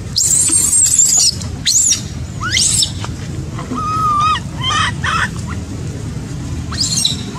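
Baby macaque crying: a shrill, very high scream in the first second and again near the end, between short rising squeals and wavering whimpers, over a steady low rumble.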